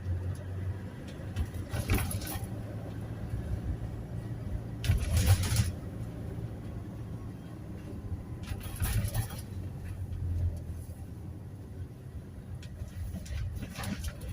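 Toyota Hiace Commuter van on the move, heard from inside: a steady low engine and road hum, broken four times by short bursts of louder noise.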